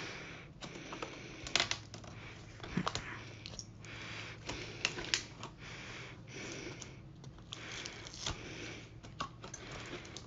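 Hands handling the layers of a laptop LCD panel's backlight unit: thin plastic film sheets rustling and crinkling, with irregular light clicks and taps as they are picked at and lifted.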